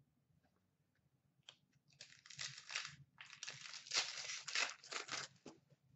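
A trading-card pack wrapper crinkling and tearing as it is ripped open by hand, in a run of rustles starting about a second and a half in and dying away just before the end.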